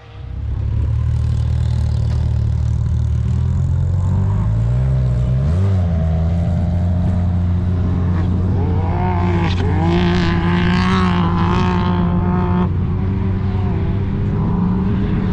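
UTV (side-by-side) engine running hard at steady high revs, its pitch stepping up about five and a half seconds in and then holding.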